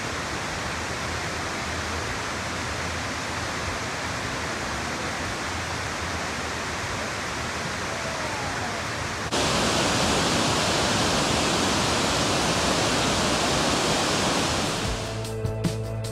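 Water rushing down a broad waterfall over stepped rock ledges: a steady, even hiss. About nine seconds in it turns suddenly louder and brighter, and music comes in near the end.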